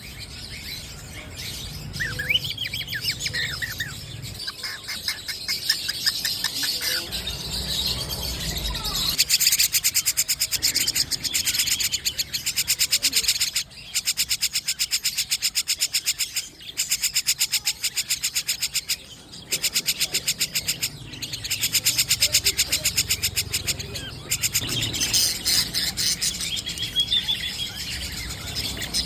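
Kept songbirds chirping, then long bursts of a fast, even, high-pitched trill that repeat every few seconds with short breaks between them.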